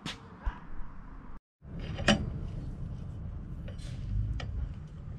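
Four-way cross lug wrench clinking on the lug nuts of an alloy wheel as they are loosened. There is one sharp metallic clank about two seconds in and lighter clicks later, over a steady low rumble.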